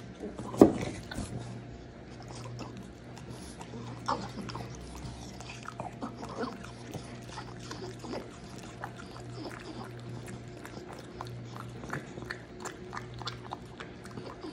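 French bulldog licking and smacking its lips, making many small wet clicks, with a sharp knock about half a second in and a smaller one near four seconds.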